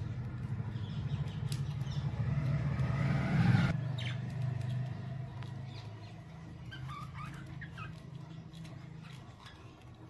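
A motor engine rumbling, swelling to a peak about three and a half seconds in, then dropping off sharply and fading. Budgerigars chirp faintly and click about the cage.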